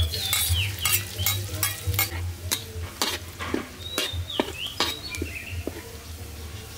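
Chopped garlic sizzling in hot oil in a steel wok while a metal spatula stirs and scrapes it against the pan, in repeated strokes about two or three a second.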